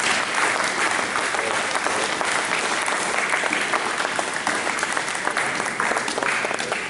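Group of uniformed sea cadets applauding, a dense steady clapping that starts to die down near the end.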